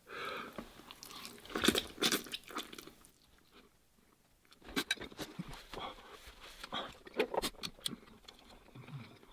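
A person chewing a mouthful of spicy instant noodles, with short wet smacks and clicks from the mouth. There is a brief quiet pause in the middle.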